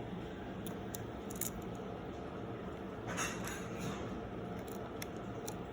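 Faint handling sounds of a 35mm SLR camera being worked in the hands: a few light clicks and a brief rustle about three seconds in, over a steady low hum.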